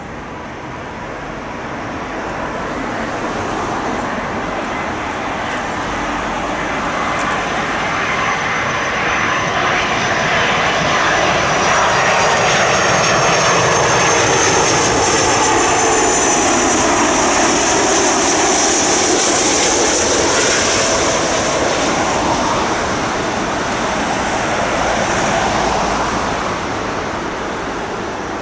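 Heavy wide-body jet airliner on final approach passing low by, its engine noise swelling, at its loudest for several seconds in the middle with a high fan whine, then fading as its tones slide down in pitch.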